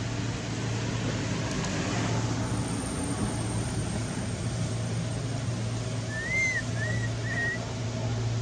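Steady low hum of traffic or engine noise, with three short rising-and-falling whistled chirps about six seconds in.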